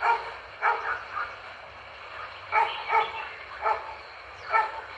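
Dog barking repeatedly: about seven short barks in irregular bunches.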